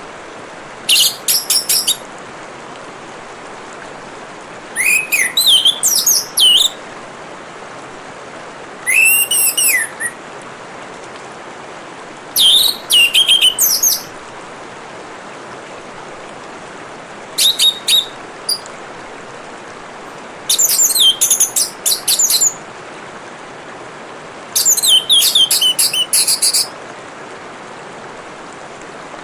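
Orange-headed thrush singing: seven short phrases of rapid, high warbling notes, each a second or two long and a few seconds apart, over a steady trickle of water.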